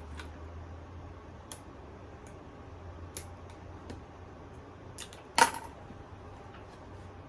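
Scattered light clicks and taps from hands handling double-sided adhesive hinges and paper, with one sharper click about five and a half seconds in, over a low steady hum.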